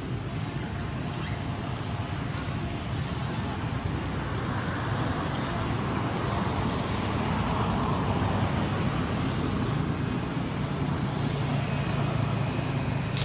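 Steady outdoor background rumble and hiss, with a low hum underneath, growing a little louder around the middle; no distinct animal calls stand out.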